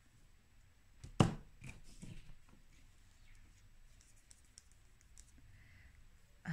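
A sharp knock about a second in as a plastic dotting tool is set down on a table among other tools, followed by a few lighter clicks and then faint handling sounds.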